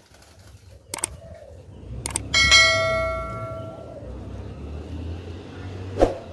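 Subscribe-animation sound effects: mouse clicks about a second in and again about two seconds in, then a bell ringing once and fading over about a second and a half. Another click comes near the end, over a low background rumble.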